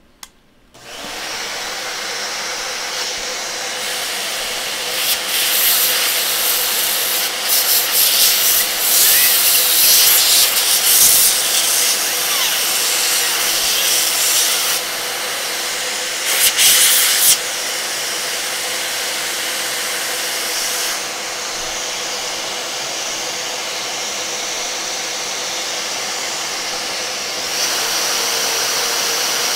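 Vacuum cleaner switched on about a second in and run steadily, its nozzle held against a laptop's vents and cooling fan to suck out dust. The suction hiss rises and falls as the nozzle moves, with the loudest rushing stretches in the first half.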